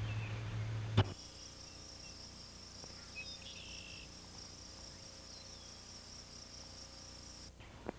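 Insects trilling steadily in a high-pitched, pulsing chorus, cut off abruptly near the end. In the first second a low hum is heard, ending in a sharp click at a tape edit.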